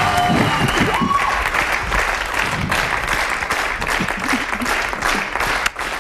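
Studio audience applauding, with a short music cue ending about a second in.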